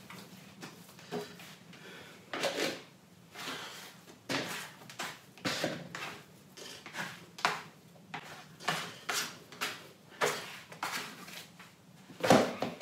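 Bread dough being stretched, folded and pressed by hand on a floured wooden table: a run of dull slaps and thuds, roughly one a second, the loudest near the end.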